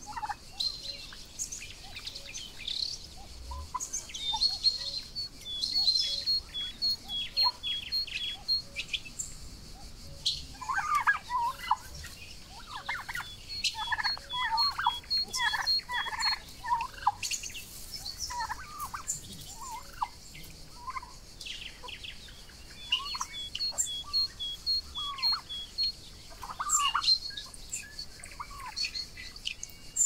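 Young Royal Palm and Broad Breasted White turkeys calling, with clusters of short, bending calls that come thickest in the middle and again near the end. Rows of quick, high, thin chirps repeat through much of it.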